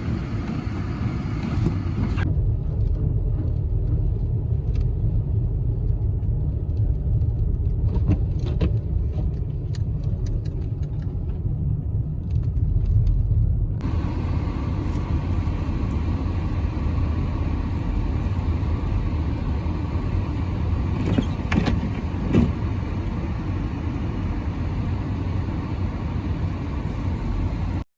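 Steady low rumble of a car driving, heard from inside the cabin: engine and tyre noise on the road. It turns duller from about two seconds in until about fourteen seconds, and a few light clicks and knocks come through along the way.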